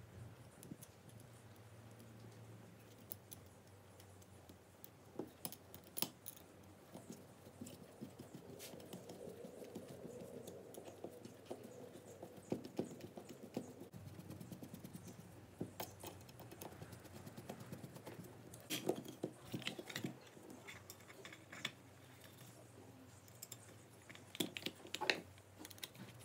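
Hand screwdriver driving small screws into steel hinges on aluminium plates: scattered light metal clicks and taps as the screws are set and turned, some in quick clusters, with a soft scraping in between.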